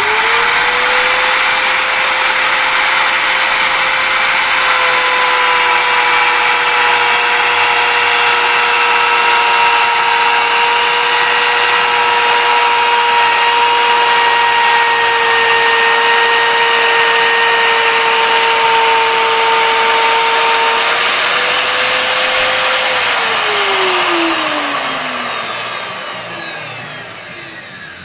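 Electric wood router motor switched on with a sudden start and running at a steady high whine. The pitch sags slightly through the middle and comes back up, then the motor is switched off and winds down in a long falling whine near the end.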